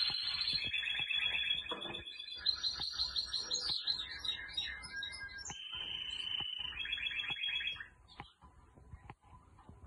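Domestic canary singing a long song of rapid rolling trills, each held for a second or so before jumping to a new pitch. The song stops about eight seconds in, leaving a few faint ticks.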